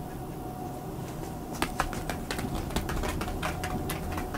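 A chihuahua's claws clicking on a wooden floor: a quick, irregular run of sharp ticks starting about a second and a half in.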